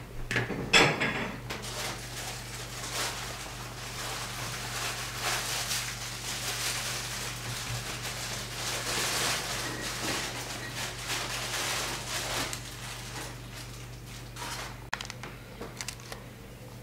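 Metal spoon scraping and scooping frozen homemade ice cream in a plastic tub: a clink about a second in, then a long gritty scraping that thins out near the end, over a steady low hum.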